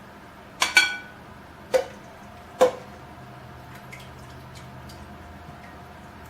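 Cooked chicken breasts being moved into a plastic storage container: three sharp clinks and knocks in the first three seconds, the first with a short ring, then soft wet drips and small ticks of juice.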